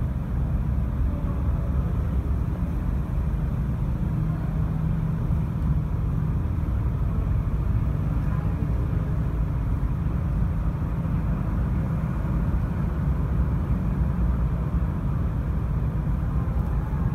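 Steady low rumble with no breaks, with a faint hum above it.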